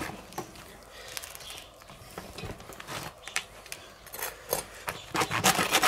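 Large knife sawing through the crisp baked crust of a filled baguette on a wooden cutting board: scattered crunches and scrapes, with a few louder crunching strokes near the end.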